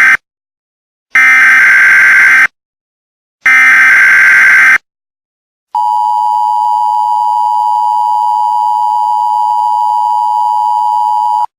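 Emergency Alert System header: the tail of one burst of SAME digital data tones, then two more full bursts of the same screeching data tones, a second apart. These are followed by the EAS two-tone attention signal, a steady, harsh dual-tone held for about six seconds, which stops abruptly.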